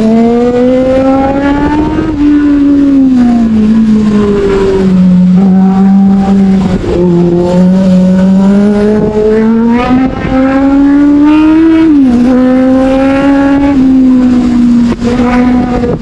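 Sportbike engine running under way, its revs climbing and falling as the rider works the throttle and gears through curves, with sudden drops in pitch about two seconds and twelve seconds in.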